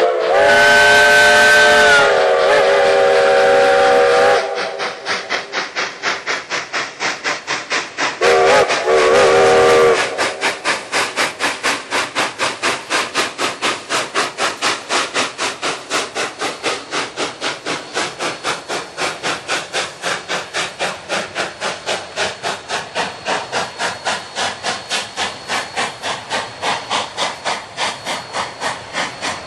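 Narrow-gauge steam locomotive blowing its whistle, a long blast of about four seconds and then a shorter one of about two seconds a few seconds later. Its exhaust chuffs steadily, at about three beats a second, as it works the train.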